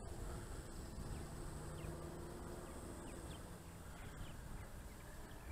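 Quiet open-air ambience: several short high chirps over a steady faint hiss, with a faint low hum from the distant electric RC plane coming in on approach.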